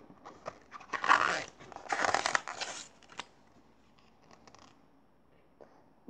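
A picture-book page being turned: paper rustling in two swishes, about one and two seconds in, followed by a few faint clicks.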